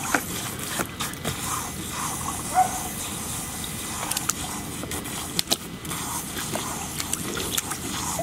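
Garden-hose water hissing as it sprays from a nozzle lying in a shallow paddling pool, with splashes and sharp clicks as a golden retriever puppy wades through the water, and a few short puppy whimpers.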